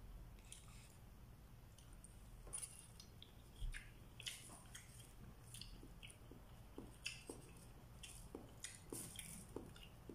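Faint eating sounds: chewing with the mouth, and scattered short crinkles and clicks of an aluminium-foil wrapper and a plastic bag handled while flatbread is torn by hand.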